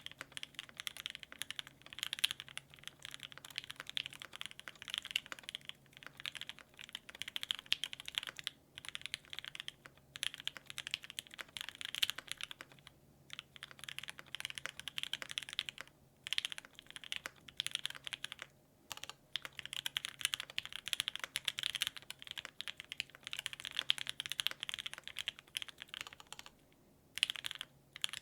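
Fast, continuous typing on an Exclusive E7-V2 custom mechanical keyboard with lubed and filmed H1 switches on a full aluminium plate, GMK keycaps and lubed Durock stabilisers, in runs broken by brief pauses.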